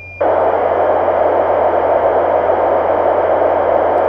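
A D-Star digital voice transmission as heard on an analog FM radio: a loud, steady noise with no intelligible speech. It starts just after a brief high tone.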